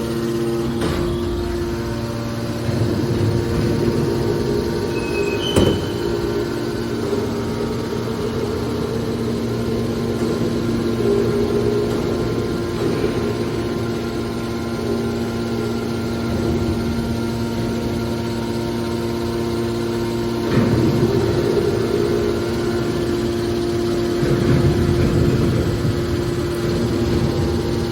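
Hydraulic scrap-metal baler running: a steady machine hum with several louder surges, and a single sharp knock about five seconds in.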